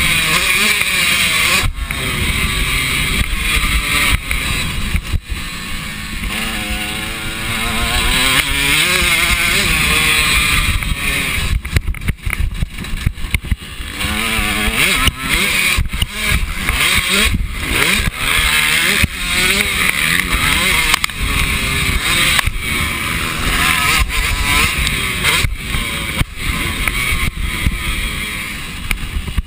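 KTM motocross bike's engine racing, its pitch rising and falling again and again as the rider works the throttle and gears around the track, with brief dips in the sound here and there.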